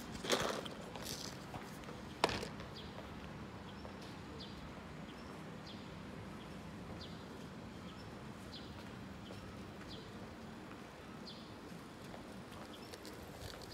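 Footsteps of a person walking on pavement, heard as faint, fairly regular ticks over a steady street background. A loud brief clatter comes just after the start, and a single sharp click about two seconds in.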